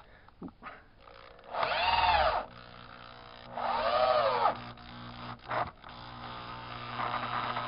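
Power drill driving screws into window trim: two short runs about two seconds apart, each winding up and back down in pitch.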